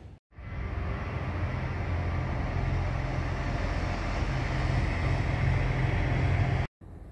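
Series 2044 diesel locomotive engine running under load with a heavy, steady low rumble. The sound cuts in about a quarter second in and cuts off abruptly near the end.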